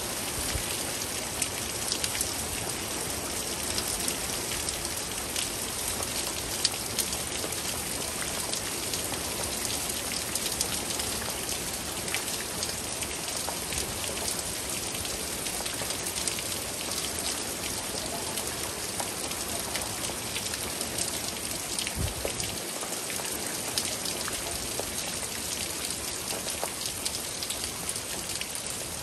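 Steady rain during a thunderstorm, with many individual drops ticking close by over an even hiss.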